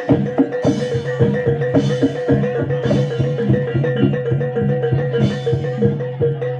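Reog gamelan accompaniment: drums and struck metal-keyed percussion playing a steady, even rhythm of about four strokes a second over a sustained ringing tone.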